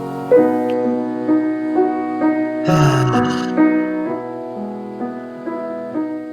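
Slow instrumental piano music, sustained chords moving to new notes about every half second. A brief breathy noise with a falling pitch cuts in about three seconds in.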